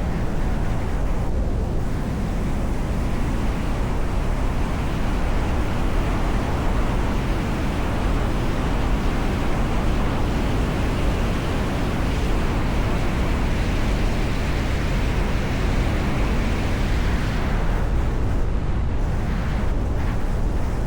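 Steady loud rush of wind on the microphone, a heavy low rumble with a hiss above it.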